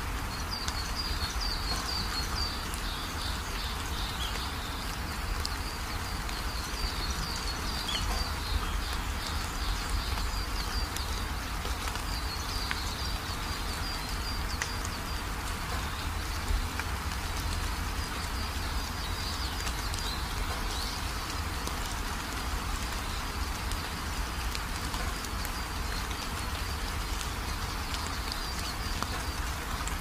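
Steady rain falling with a low rumble underneath. Birds chirp in quick, high trills in stretches over it.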